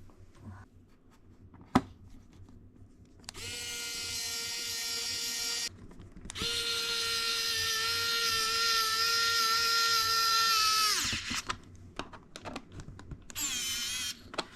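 Cordless electric precision screwdriver running in three spells: about two seconds, then a longer, louder run of about four and a half seconds, then a brief one near the end, each a steady motor whine. A sharp click comes before the first run, and light ticks fall between the runs.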